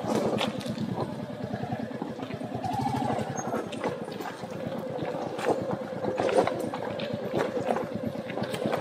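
Royal Enfield single-cylinder motorcycle engine idling: a steady run of rapid, even thumps, with a few light knocks over it.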